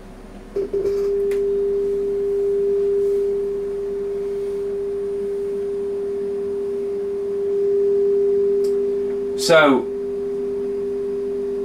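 Steady sine-wave test tone of about 400 Hz from an audio signal generator, played through the Sonab R4000 amplifier's right channel. The tone starts about half a second in, swells slightly around the eighth second, and briefly slides down in pitch shortly before the end.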